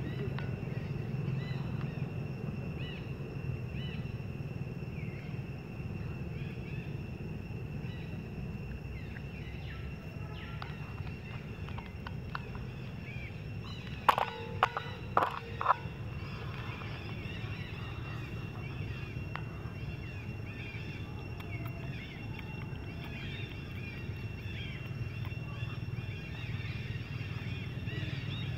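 Outdoor ambience: a steady low hum, a thin high-pitched tone held throughout and many faint chirps. About halfway through comes a quick run of four short, loud animal calls.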